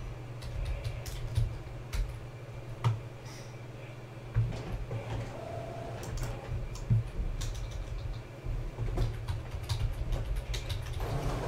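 Typing on a computer keyboard: irregular, scattered key clicks over a steady low room hum.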